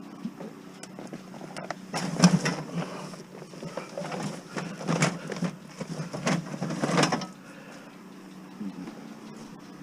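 Curbside junk being handled and shifted: a run of irregular rustles, knocks and clatters lasting about five seconds, starting about two seconds in, over a steady low hum.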